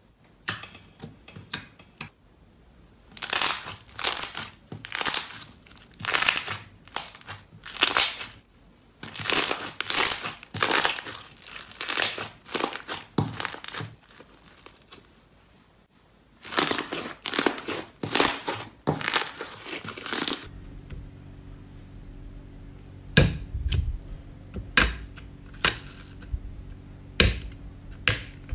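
Hands stretching and folding glossy liquid-glass slime, each pull giving a short noisy burst of sound, about one a second, with a pause around the middle. About 20 seconds in, a different slime is pressed with fingers in a glass dish, giving sharp clicks over a low hum.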